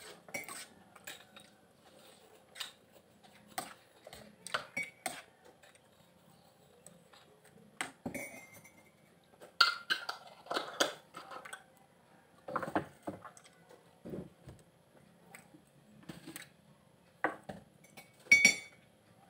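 Eating sounds: a metal spoon clinking and scraping in a ceramic bowl of oatmeal, with sharp ringing pings, and the small cracks and crackles of lansones skins being split and peeled by hand, plus mouth and chewing sounds.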